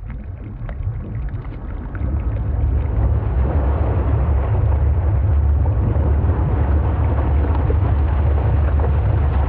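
Heavy rushing water, a dense steady noise with a strong deep rumble, fading in over the first few seconds and then holding steady.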